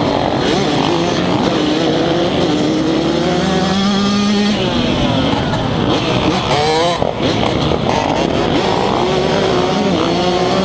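Yamaha YZ125 two-stroke dirt bike accelerating hard away from a race start, its pitch climbing and dropping back several times as it shifts up through the gears, with other dirt bikes revving around it.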